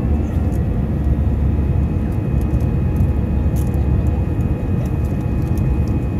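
Cabin noise inside an Airbus A320 climbing after takeoff: a steady, loud rumble of the jet engines and rushing air, with a faint steady whine above it.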